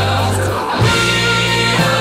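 Background music: a rock song with guitar over a steady, held bass line.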